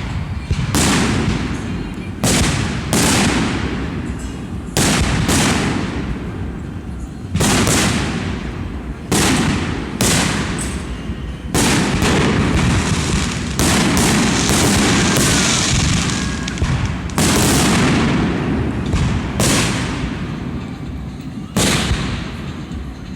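Fireworks display: aerial shells bursting with loud bangs every one to two seconds, each followed by a fading crackle and rumble.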